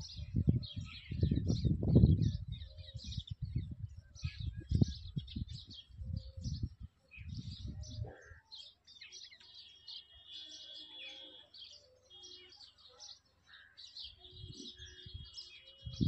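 Small birds chirping in many quick, short high notes, with an irregular low rumble on the microphone through the first half. A few thin, steady high whistles are held briefly in the second half.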